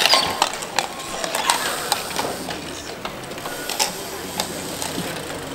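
Hardcourt bike polo play: scattered sharp clacks and knocks of mallets striking the ball, each other and the bicycles, over a steady background hiss.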